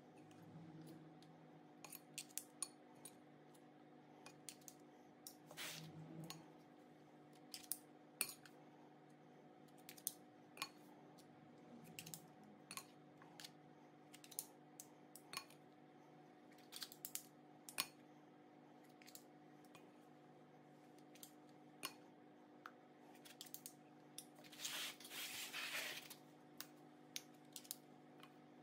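Faint, scattered light clicks of two metal spoons tapping against each other and the glass mixing bowl as batter is scooped and scraped into paper muffin cups, with a short scrape about three quarters of the way through.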